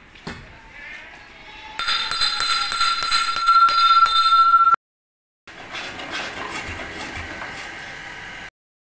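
Hand tools breaking up a concrete floor: a heavy steel digging bar and a hammer strike again and again, with metallic clinking and a steady ringing tone. After a short break, quieter metal clatter follows.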